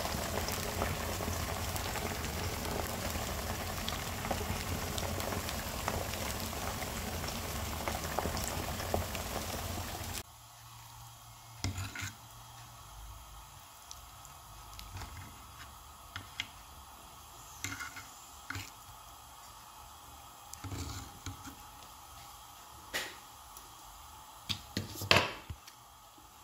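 Fish tagine simmering in an earthenware tagine on a gas burner: a steady bubbling hiss for about ten seconds that cuts off abruptly. After that, only a few faint, light clicks of a fork against the clay dish, the clearest near the end.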